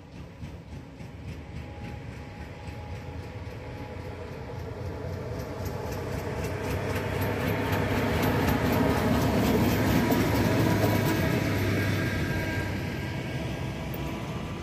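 Two coupled diesel locomotives running light past on the main line. The engine drone builds to a peak about ten seconds in, with a rhythmic clicking of the wheels over the rails at the loudest, then fades as they pass.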